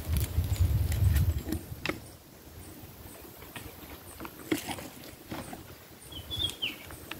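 Wind rumbling on the microphone for about two seconds, then light rustling and scattered clicks from the grass. A short, high bird chirp comes near the end.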